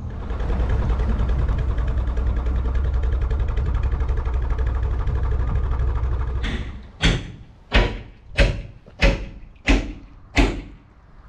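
Narrowboat diesel engine running steadily, which then fades out, followed by six heavy, evenly spaced thumps about two-thirds of a second apart.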